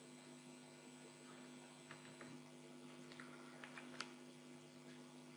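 Near silence: a faint, steady electrical hum in the recording, with a few faint clicks, the clearest about four seconds in.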